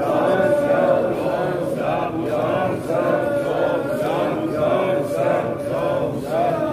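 A group of men chanting a noha, a Muharram mourning lament, together, with faint regular slaps of chest-beating (matam) under the voices.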